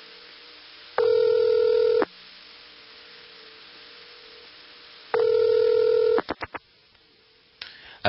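Telephone ringback tone from a 101 Centrex electronic switching office, on an old line recording: two rings about a second long, about four seconds apart, over a faint steady line hum. A few clicks follow the second ring.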